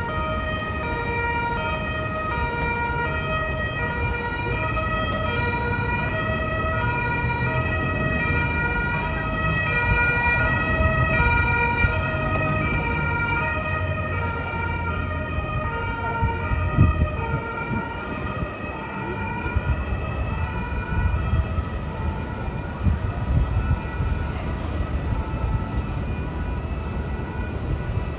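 Two-tone siren alternating steadily between a high and a low note, about one change a second, over a low rumble.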